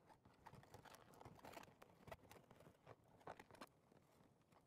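Near silence, with a few faint scattered rustles and clicks of latex balloons being handled and tied.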